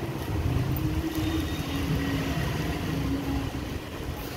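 Steady low rumble with a faint hum over it, under the soft rustle of cotton suit fabric being unfolded and handled.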